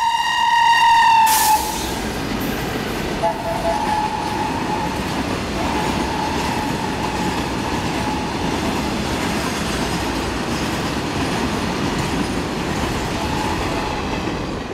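Shrill horn of twin WDG-3A diesel locomotives, which stops about a second and a half in. A train of BTPN tank wagons then rolls past with a steady rumble of wheels on rail.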